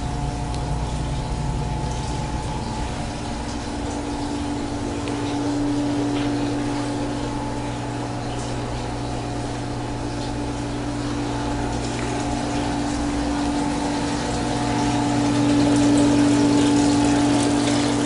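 Steady mechanical hum at a constant pitch, rising a little in level near the end.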